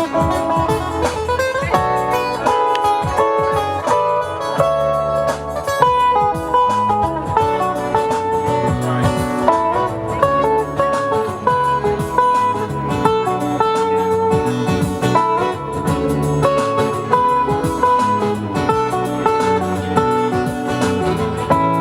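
Guitar playing an instrumental passage: a quick single-note melody over lower accompanying notes.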